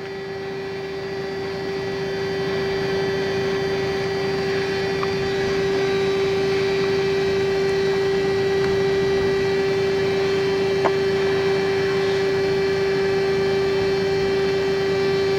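A small motor running with a steady, even hum, growing a little louder over the first few seconds. There is a faint click about five seconds in and another near eleven seconds.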